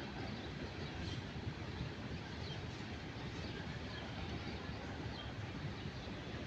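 A passing train rolling by with a steady low rumble, with faint short high chirps now and then.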